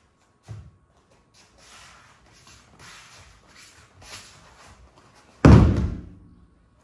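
Judo throw landing: the thrown partner's body and breakfall slap hit the tatami once, a loud, heavy thud with a short ring-off in the hall, near the end. Before it come a lighter thump about half a second in and soft shuffling on the mats.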